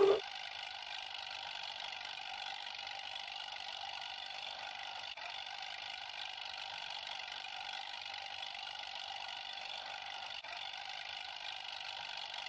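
Steady mechanical running noise like a vehicle engine, thin with no low end, with two brief dips about five seconds apart.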